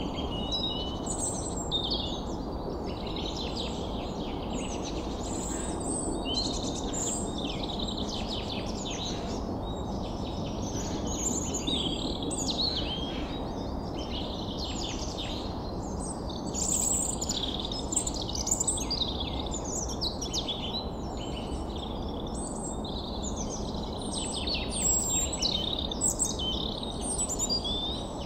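Birdsong ambience: many birds chirping and calling in short overlapping notes over a steady low rushing background, the calling busiest a little past the middle and near the end.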